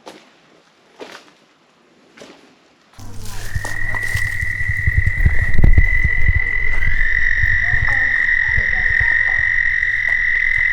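Frogs trilling: a long, steady, high-pitched trill starts suddenly about three seconds in and holds on, with a second trill joining about halfway through. A low rumble of wind on the microphone with scattered knocks runs underneath, and faint ticks come before the trill starts.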